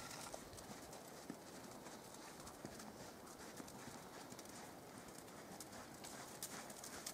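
Faint hoofbeats of a ridden horse moving over soft arena dirt, heard as scattered light thuds.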